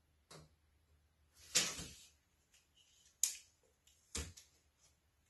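Steel tape measures being handled and extended: a short scraping rattle about one and a half seconds in, the loudest sound, and a few sharp clicks of the blade and case later on.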